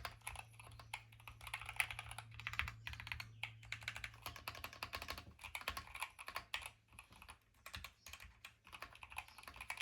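Keychron Q1 HE, an aluminium-cased keyboard with magnetic Hall-effect switches, being typed on quickly: a dense run of thocky key clacks with a few short lulls, over a low steady hum.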